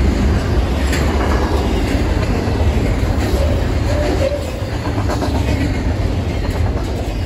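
Double-stack intermodal freight cars rolling past on steel wheels: a steady rumble of wheels on rail with scattered clicks, easing slightly near the end as the tail of the train goes by.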